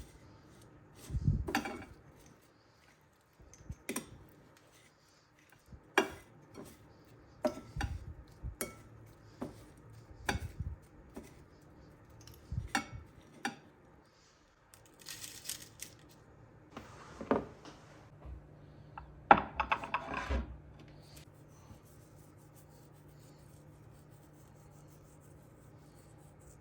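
Cutlery and dishes clinking and knocking: a string of separate light clicks and knocks, with a brief hissing scrape about fifteen seconds in and a busier clatter a few seconds later.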